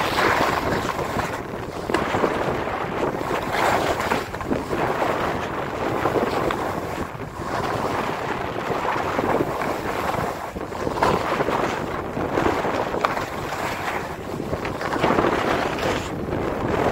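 Wind rushing over the camera's microphone as a skier descends at speed, mixed with skis hissing and scraping over packed, groomed snow. The noise swells and eases every second or two with the turns.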